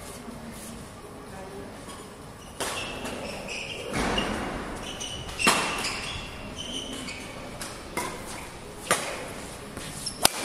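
Badminton rackets hitting a shuttlecock in a rally: a few sharp hits, the loudest about halfway through and a quick pair near the end, with several short high squeaks between them.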